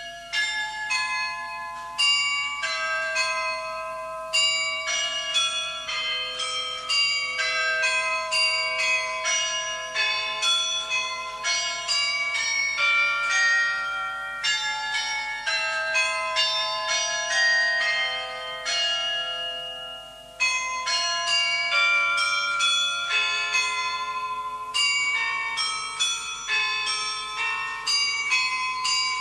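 Church bells ringing: a steady succession of strokes from several bells of different pitches, each stroke ringing on into the next. The ringing dips briefly about twenty seconds in, then starts again.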